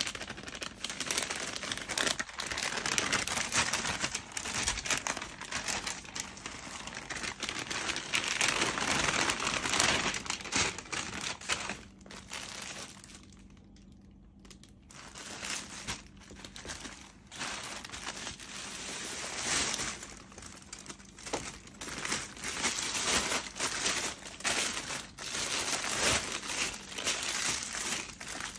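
Plastic packaging crinkling and rustling as it is handled and pulled open, with a quieter stretch about halfway through.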